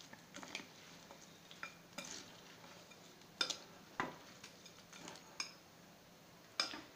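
Metal spoon stirring a rice stuffing in a glass bowl: soft scraping with about six sharp clinks of the spoon against the glass at irregular intervals.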